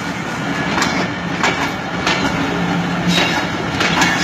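A Pakistan Railways train running past close by: a steady rumble with a low hum, and sharp clicks at irregular intervals of about a second.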